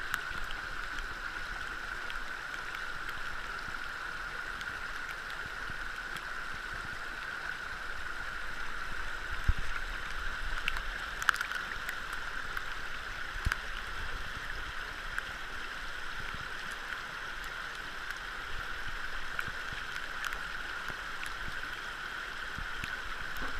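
Fast, shallow stream rushing over rocks and through a plastic sluice box, a steady rush of water with a few brief clicks partway through.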